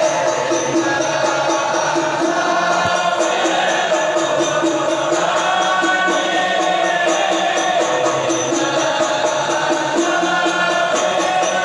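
Men's voices chanting Arabic sholawat together, with frame drums keeping a steady beat, relayed over loudspeakers.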